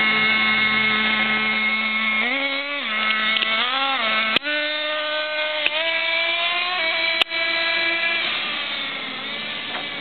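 Small nitro RC car engine running with a high-pitched drone. It revs up briefly twice, about two and three and a half seconds in, then holds a slightly higher steady pitch. Two sharp clicks come about four and seven seconds in.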